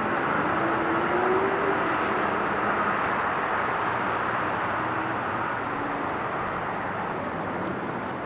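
Steady rushing hum of distant engines outdoors, slowly fading, with a faint gliding tone about a second in.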